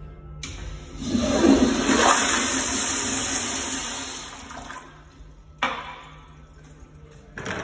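Commercial flushometer toilet flushing after its button is pressed: a sudden rush of water that swells for a few seconds, then tapers off. A sharp click about five and a half seconds in, and a thump near the end.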